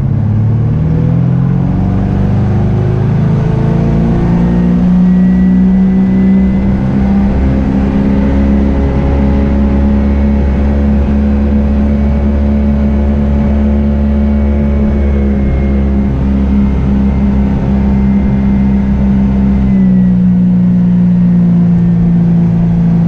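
A 302 Ford V8 inboard in a 1974 Century Resorter boat, running through Hardin marine mufflers. It revs up to full throttle (about 4,200 rpm) over the first few seconds and holds there, loud at about 107 to 110 dB at the helm, then its pitch drops slightly near the end.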